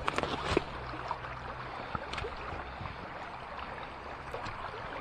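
Water sloshing and splashing around a person's legs as they wade across a flowing river, over the steady rush of the current, with a few sharper splashes in the first second.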